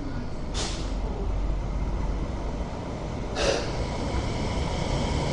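Hong Kong Light Rail Phase 5 light rail vehicle pulling into the stop: a low rumble growing slowly louder as it approaches, with two short hisses about three seconds apart.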